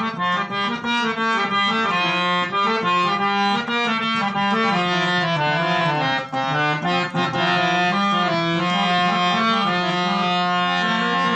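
Instrumental interlude of a Gujarati bhajan: a harmonium plays the tune in quick stepwise notes over a steady held drone, with no singing.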